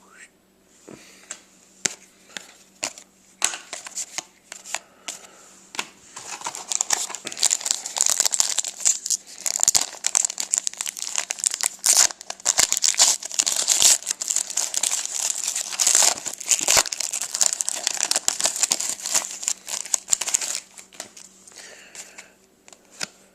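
Hockey card pack wrapper being crinkled and torn open. Scattered crackles at first, then dense, continuous crinkling for about fifteen seconds, easing off near the end.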